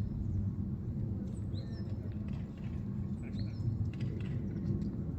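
A bird chirps a short call roughly every two seconds over a steady low rumble.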